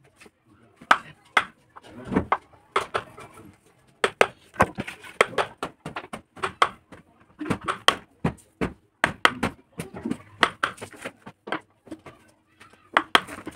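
Wood-carving chisel being struck with a mallet into a wooden board, a quick, irregular run of sharp knocks as the outline of a flower design is cut.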